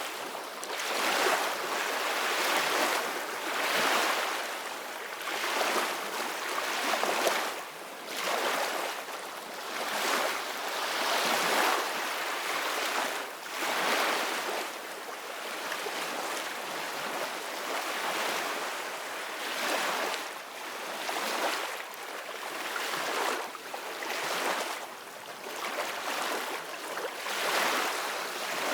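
Sea waves splashing and washing in uneven surges every couple of seconds over a steady hiss of wind and water.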